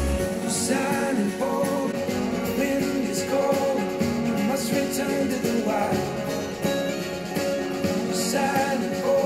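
Rock music with guitar played back through a pair of three-way studio monitors and picked up by microphones in front of them. Heavy deep bass a fraction of a second in, from KRK Rokit 10-3 G4 monitors, then thinner bass as playback switches to Kali Audio IN-8 monitors.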